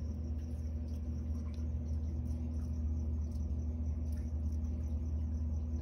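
A steady low hum with a faint high whine above it and a few faint scattered ticks.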